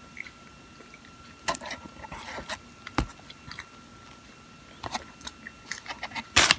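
A person chewing and biting a soft chocolate-topped custard-cream bun close to the microphone: wet mouth clicks and smacks in scattered bursts, a sharp click about three seconds in, and the loudest burst near the end. A faint steady high tone runs underneath.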